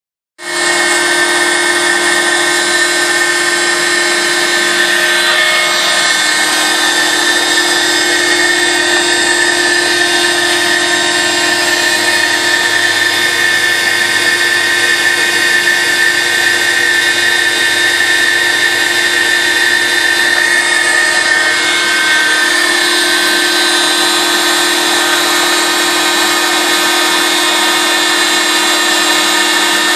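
DeWalt router on an X-Carve CNC machine cutting a straight edge through a stack of three polycarbonate sheets: a steady whine at an even level, coming in abruptly at the start.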